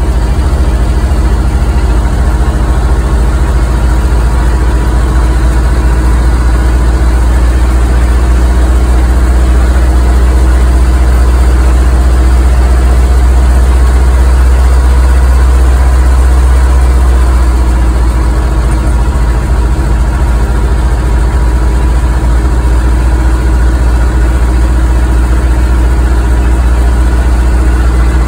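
Hürlimann tractor's diesel engine running steadily as it is driven down a steep road, a loud, even low drone heard from the driver's seat.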